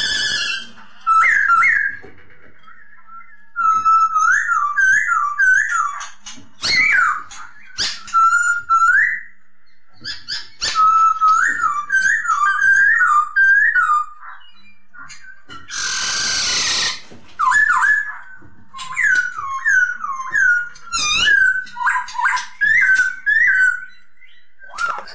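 Poksay hongkong (laughingthrush) singing: loud whistled phrases of quick rising-and-falling notes, repeated in runs with short pauses, over thinner high notes. About sixteen seconds in there is a harsh, noisy outburst lasting about a second.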